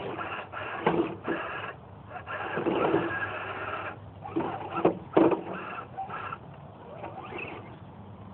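Electric motor and gearbox of a radio-controlled scale crawler truck whining in stop-and-go spells as it crawls over branches and leaf litter, with crackling of dry leaves and a few sharp knocks.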